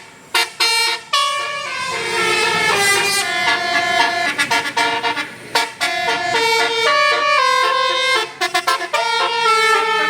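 Bus telolet Basuri musical horn playing a tune: a string of held horn notes stepping up and down in pitch, with short breaks between phrases near the start.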